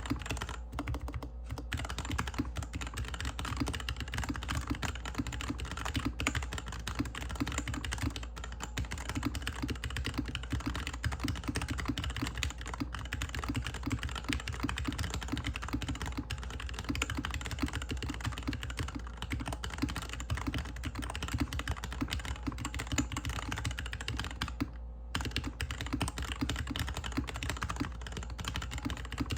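Fast typing on a GK61X mechanical keyboard with linear Cherry MX Hyperglide Black switches, a stainless steel plate, a plastic case and DSA keycaps, set on a desk mat. The keystrokes run as a dense, unbroken clatter, with a brief pause about 25 seconds in.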